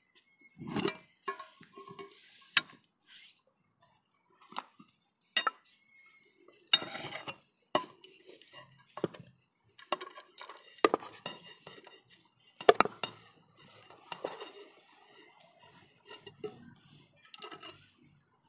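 A metal camping pot and its lid clattering while a wooden spatula scrapes and knocks fried rice out of the pot into the lid. The sound is irregular sharp knocks and short scrapes, the loudest about a third and two-thirds of the way through.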